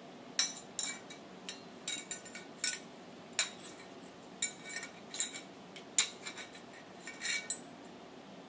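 Metal parts of a Daisy 1903 Springfield replica drill rifle clinking and clicking as the receiver is worked apart by hand: an irregular string of sharp metallic clicks, a few ringing briefly.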